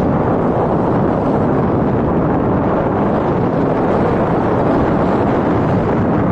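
Steady wind rush on the microphone of a moving motorcycle on a dirt trail, with the motorcycle's engine running underneath.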